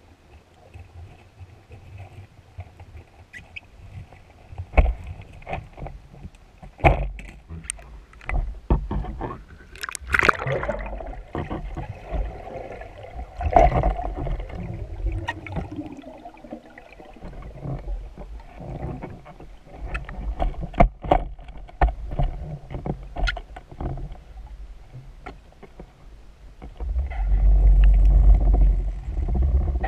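Underwater sound picked up by a speargun-mounted camera during a freedive: water moving past the housing, with scattered sharp clicks and knocks from the gear. Near the end a loud low rush of water as the diver swims hard.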